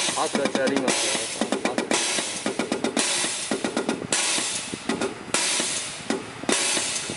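Diesel injector firing on a test bench into its spray chamber: runs of rapid sharp clicks, about ten a second, alternate roughly every second with a hiss of spray, as the test pressure is raised past 3800 psi toward the injector's 3780–3860 psi opening-pressure spec.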